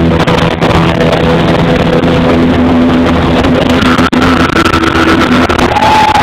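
Live hard rock band with electric guitars and drums playing through a concert PA, recorded close to the speakers so that it is overloaded and distorted. Held notes ring over the band, with a higher sustained note coming in about four seconds in.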